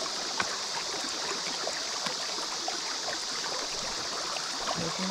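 Shallow river water running steadily past, an even rushing hiss, with a few faint clicks and taps over it.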